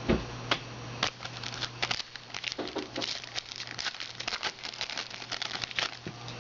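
Crinkling and rustling of trading-card packs and cards being handled, a dense run of small irregular clicks and snaps.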